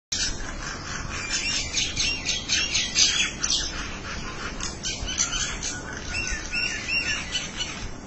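Several common mynas chattering and calling to one another: a dense run of rapid harsh notes for the first half, then clearer whistled notes that rise and fall.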